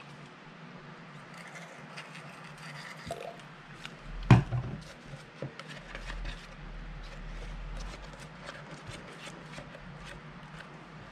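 A stick stirring fluffy slime mix (glue, shaving cream and saline solution) in a plastic tub: soft scraping and sticky squelching with many small clicks against the tub. There is one sharp knock about four seconds in.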